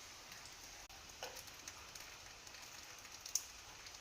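Steady rain hiss with occasional sharp drips, one louder drip late on, and a faint short falling squeak about a second in.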